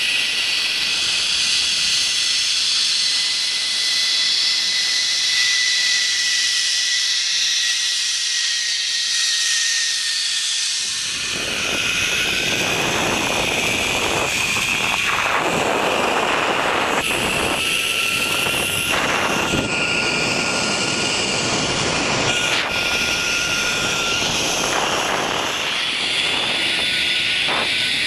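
Zipline trolley running along a steel cable: a steady whirring hiss with a faint whine that drifts in pitch. From about eleven seconds in, wind buffets the microphone.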